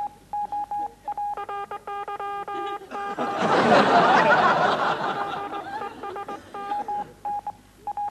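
Beep tones dubbed over dialogue in place of the spoken words: a single beep pitch chopped on and off in the rhythm of speech, with a chord of higher and lower beeps for a stretch around two seconds in. A louder noisy burst lasts about two seconds from three seconds in.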